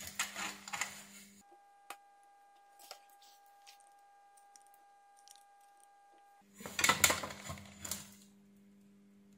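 Hands handling a hot glue gun and the metal clock case, making clicks, knocks and rustles, loudest about seven seconds in, over a steady electrical hum. For about five seconds in the middle the hum is replaced by a steady, high, beep-like electronic tone.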